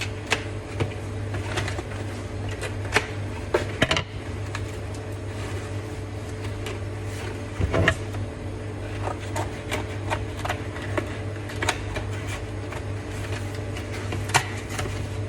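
Scattered clicks and rustles of packaging and items being handled, over a steady low hum.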